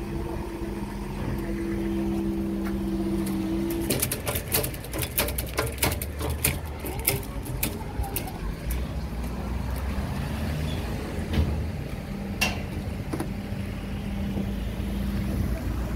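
A steady two-note hum that cuts off about four seconds in, then a run of sharp clicks over wind noise as a car drives over the railway level crossing.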